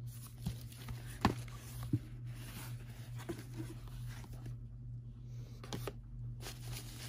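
Paper and card rustling as a booklet and sheets are handled and set down on shredded paper filler, with a couple of light taps and a quieter pause past the middle. A low steady hum runs underneath.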